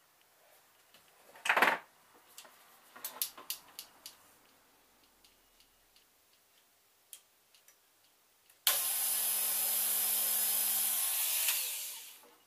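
A small electric drill running for about three seconds, boring a pilot hole for a track pin into an MDF baseboard, starting suddenly and then winding down. Before it come a few faint clicks and knocks of handling.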